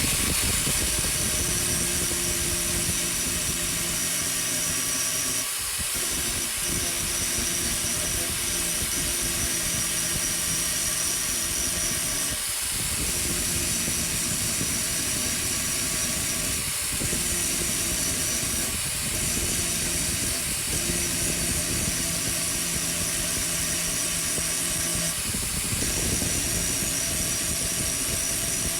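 Electric grinder running against steel, smoothing down weld built up in the bearing groove of a mower deck spindle: a steady whine that breaks off briefly about six times as the load on the wheel changes.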